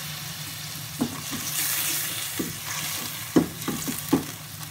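Browned onions and ginger-garlic paste sizzling in hot oil with a little water in a steel pan, a steady hiss. A silicone spatula stirs through it, scraping and knocking against the pan a few times, mostly in the second half.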